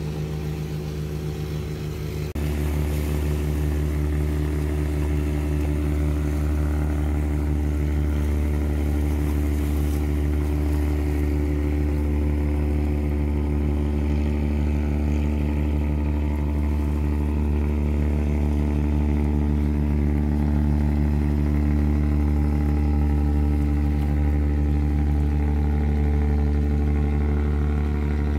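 Boat engine running steadily as a boat motors past on the water. About two seconds in, the sound switches to the louder, deeper, steady engine of a wooden fishing boat cruising by.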